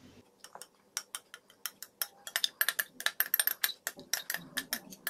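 A spoon scraping and clicking against a glass bowl as thick marinade is scraped out of it, a rapid run of light ticks that comes thickest in the middle.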